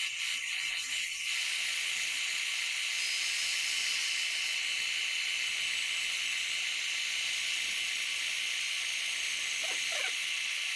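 Steady, even high-pitched hiss with nothing lower beneath it and no engine sound.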